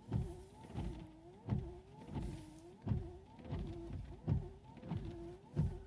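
1995 Honda Civic windshield wiper motor running with the wipers sweeping back and forth, a motor whine dipping and rising in pitch with each sweep and a low thump about every three quarters of a second. The wipers cannot be switched off because the wiper switch's mechanism is broken.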